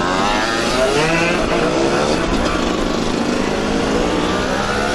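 Several small two-stroke moped engines running and revving, their pitches rising and falling and crossing one another.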